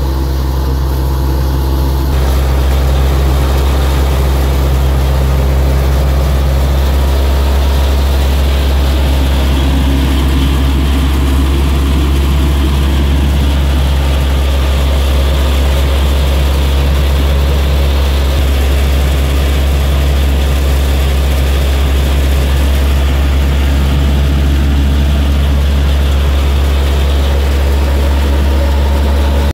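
Wheat thresher machine running steadily: a loud, constant low drone with mechanical noise on top. About two seconds in, the noise above the drone fills out and stays fuller.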